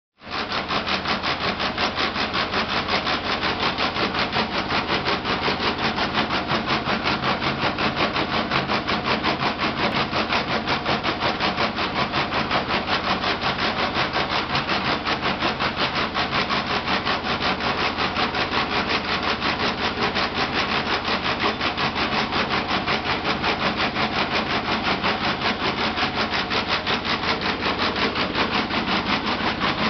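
Bread-factory machinery running steadily with a fast, even mechanical rhythm.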